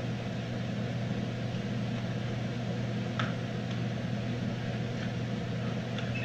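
Steady low machine hum, like a fan or appliance running, with a few faint light clicks around the middle and near the end.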